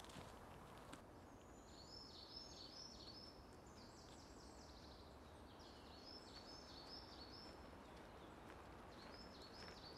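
Faint songbird singing: short high notes repeated in quick phrases of several, phrase after phrase, over a low background hiss.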